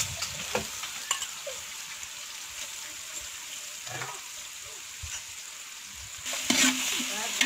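Sliced onions frying in hot oil with whole spices in a large aluminium pot: a steady sizzle, with a few faint clicks, growing louder near the end.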